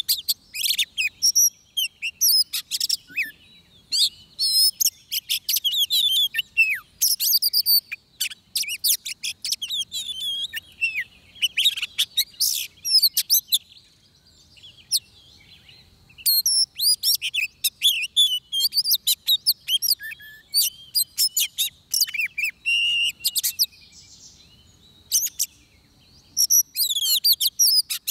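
Oriental magpie-robin singing a rich, varied song of quick whistles and chirps in long phrases, broken by short pauses about halfway through and again about two-thirds through.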